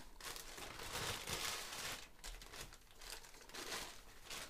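Subway sandwich's paper wrapper crinkling and rustling as it is unfolded by hand, busiest in the first couple of seconds.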